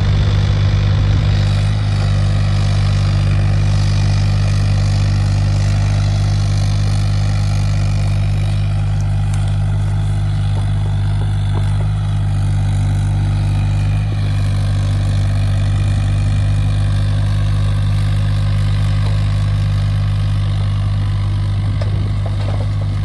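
Hyundai HX35Az mini excavator's diesel engine running steadily at an even pitch, with slight slow shifts in tone.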